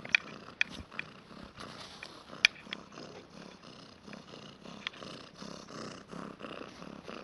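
Domestic cat purring steadily up close, with a few sharp clicks over it, the loudest about two and a half seconds in.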